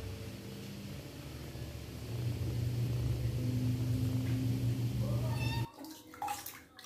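A kitten meowing: over a steady low hum, one rising meow about five seconds in, then short meows mixed with splashes of water as it is washed in a basin.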